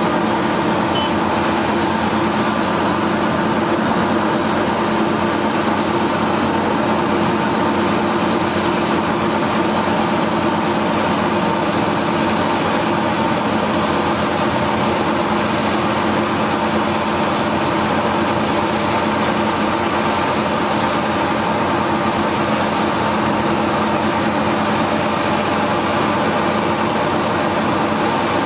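RTG sheet-piling rig running with its vibratory head for driving steel sheet piles, giving a loud, even drone with a thin high whine above it.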